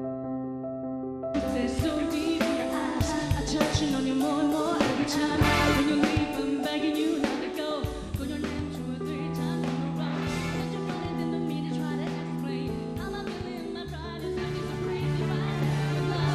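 Pop song with a singing voice over a full band with drums. A soft keyboard passage gives way to the full band about a second in.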